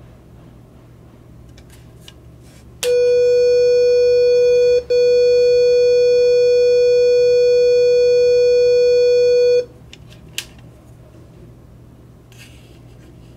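Greenlee BLL-200R buried line locator receiver sounding its steady signal tone: one loud, buzzy pitch with many overtones, lasting about seven seconds with a short break about two seconds into it. The tone is the receiver's audible guidance, telling that it is picking up a line's signal.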